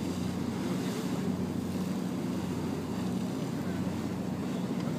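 Water bus under way: its engine runs with a steady low drone, under a constant rush of wind and water noise.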